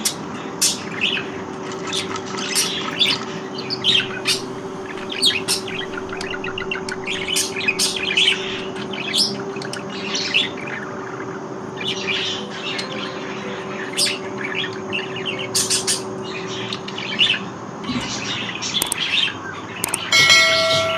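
Many budgerigars chirping, a busy run of short high chirps throughout, over a steady low hum. A brief pitched tone sounds near the end.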